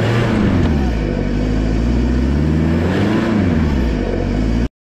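2003 Nissan Patrol Y61's 3.0 litre four-cylinder turbodiesel engine revving up and easing off twice as the 4x4 crawls over rocks. The sound cuts off suddenly near the end.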